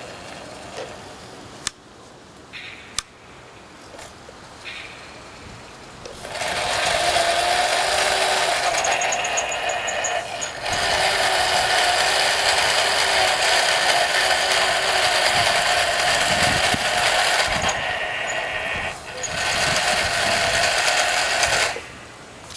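The twin live-steam engines of a radio-controlled tank running with rapid mechanical chatter over a dense, steady rush of steam and a constant tone. This sets in about six seconds in after a quieter stretch with a couple of sharp clicks, dips briefly twice, and drops away near the end.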